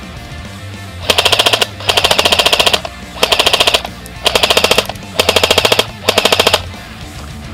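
Airsoft rifle firing six short full-auto bursts of rapid, evenly spaced shots, with brief pauses between them.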